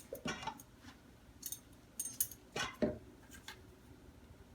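Kitchen utensils clinking and knocking, about half a dozen separate taps with a brief metallic ring, as flour and baking powder go into a sieve.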